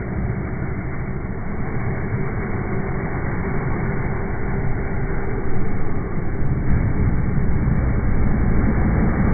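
Audi 200's five-cylinder engine running hard at high revs as the car slides sideways through snow, growing a little louder toward the end.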